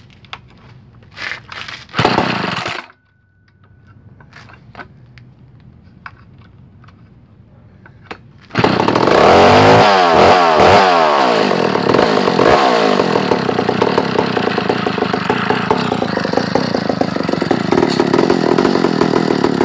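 McCulloch 797 chainsaw's 123cc two-stroke engine starting about eight and a half seconds in, revved up and down a few times, then running steadily. Before it starts there are handling clicks and a brief loud noise about two seconds in.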